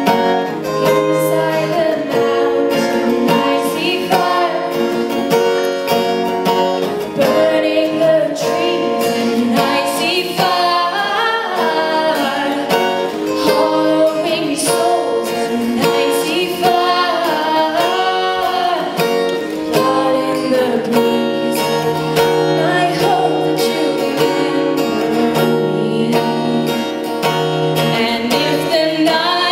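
A young woman singing live to acoustic guitar accompaniment.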